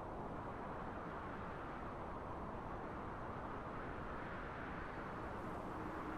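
Steady wind blowing, an even low rushing sound that swells slightly in the second half. A faint steady hum comes in near the end.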